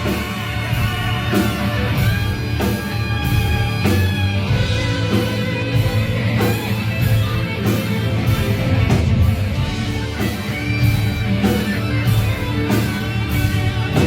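Live heavy metal band playing: electric guitar over bass and a steady drum beat, recorded from the audience.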